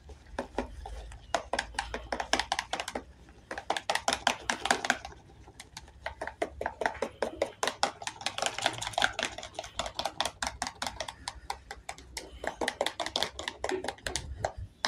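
Toothbrush rapidly whisking laundry detergent and water in a plastic dipper to work up foam: fast clacking of the brush against the plastic, with sloshing water, in several runs with short pauses.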